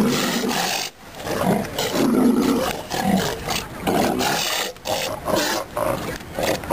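A group of South American sea lions calling over one another: one loud, rough bark after another, with a brief lull about a second in.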